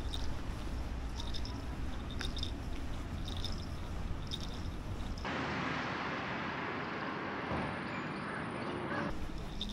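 Outdoor ambience with wind rumbling on an action camera's microphone and faint ticks about once a second. About five seconds in it cuts suddenly to a steadier hiss without the rumble, and near the end the rumble returns.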